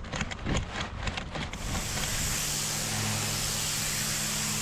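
A few quick scrubbing strokes of a water-fed brush, then about one and a half seconds in a pressure-washer lance starts spraying onto a concrete path: a steady hiss of spray over the machine's steady low hum.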